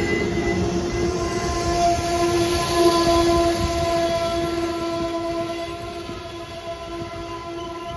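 Amtrak passenger cars rolling slowly past, wheels rumbling on the rails. A steady pitched drone sounds over the rumble, loudest in the first few seconds, and the whole sound eases off towards the end.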